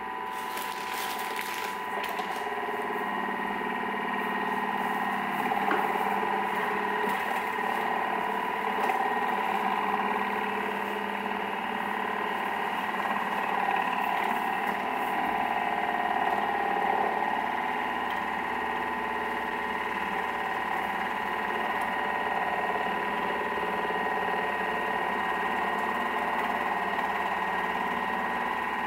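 Thermomix TM6 running at speed 4 while heating butter and chopped garlic toward 50 °C: a steady motor whine with a few held tones.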